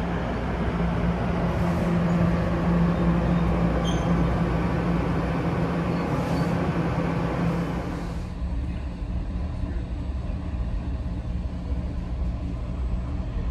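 Diesel locomotive of an NJ Transit train running, a steady low hum over a broad rumble. The noise drops off sharply about eight seconds in and carries on as a quieter rumble.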